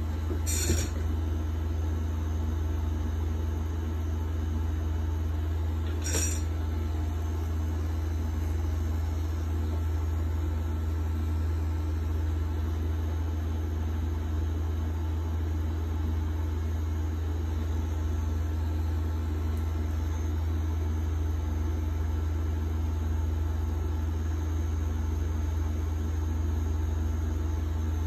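Rotary pen tattoo machine running with a steady low hum while it works ink into skin. Two short noisy sounds come through, about a second in and again about six seconds in.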